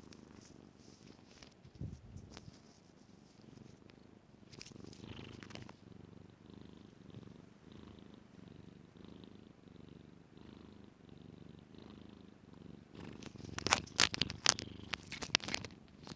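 Kitten purring steadily close up, with a burst of loud sharp clicks and scrapes near the end.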